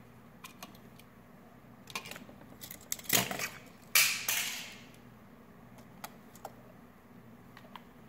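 Small clicks and knocks of a new plastic light switch and its metal parts being handled, with a louder clatter about four seconds in that dies away over about a second.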